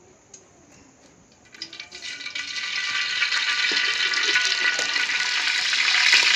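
Cooking oil poured into a hot aluminium pot over a wood fire, starting to sizzle about a second and a half in and building quickly to a steady loud hiss with fine crackling.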